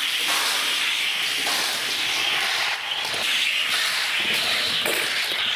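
Toy Ford Transit van rolling down a plastic race track, a steady rushing, hissing rumble of small wheels on the track that cuts off abruptly near the end.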